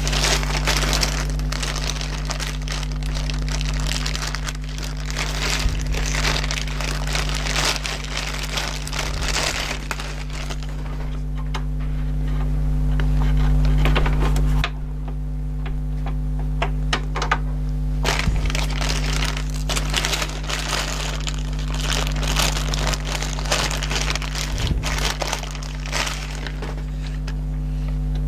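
Clear plastic bag crinkling and irregular small clicks and cracks of handling as hands sort replacement rubber drive belts and fit them in a CD changer mechanism, over a steady low hum.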